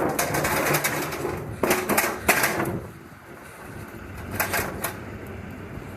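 Rattling and clattering of hardware being handled while a refrigerator door is refitted, in three bursts, with a few sharp clicks near the end.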